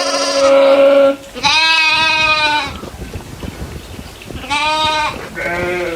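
Goats bleating: two long calls of about a second each, a pause, then two shorter calls near the end.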